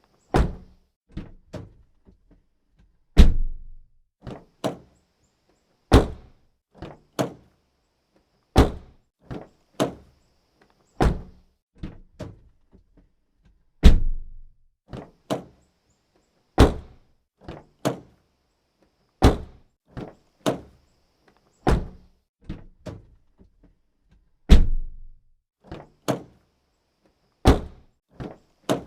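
Car door being shut again and again, a heavy thud every two and a half to three seconds, with smaller clicks and knocks in between.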